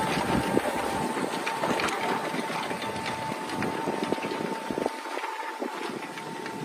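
John Deere 6195R tractor's 6.8-litre six-cylinder diesel engine running under load as it pulls a plough, with a thin steady whine and scattered ticks, slowly fading as the tractor moves away.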